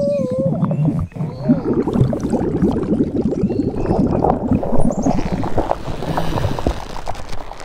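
Added stomach sound effects for a cartoon character's swollen belly: a brief gliding groan, then a dense run of wet gurgling and churning.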